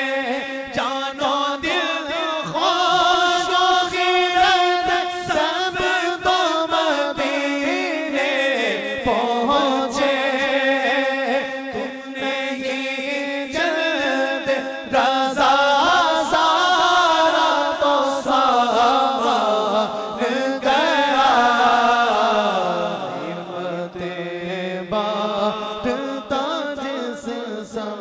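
Men's voices chanting a naat in long, drawn-out melodic phrases, a lead voice with others joining in. The melody slides down in pitch about three quarters of the way through.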